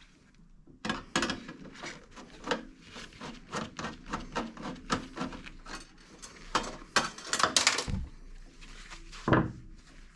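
Irregular clicks, taps and light clatter of a screwdriver and sheet-metal parts being handled as a screw is taken out of a range hood's electrical box cover and the cover is worked loose, with a louder knock near the end.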